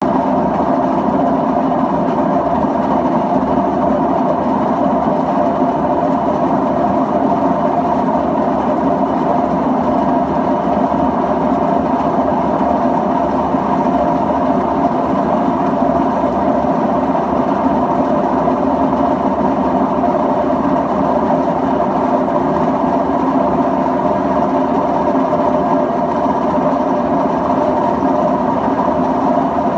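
LG WD-1403TDS6 direct-drive front-loading washing machine running with a loud, steady mechanical noise from its drum. The owner takes the noise for a fault in the direct-drive drum.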